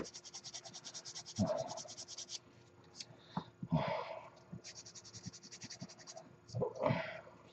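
Rapid fine scratching strokes, about ten a second, on a small plastic model-kit part as the sprue cut mark is cleaned up, in two runs with a pause between. A few short handling noises come in between the strokes.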